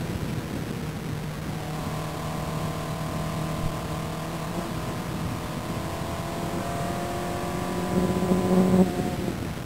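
Open-wheel single-seater race car engine heard from the cockpit under acceleration down a straight, its pitch climbing slowly. The engine is loudest just before the end, then its pitch and level drop abruptly.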